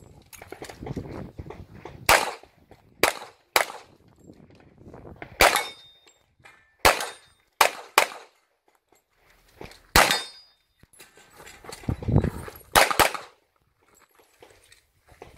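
Pistol shots fired during a practical shooting course of fire: about ten sharp cracks, single shots and quick pairs, with pauses of a second or two between groups. Low rumbling noise fills the gaps.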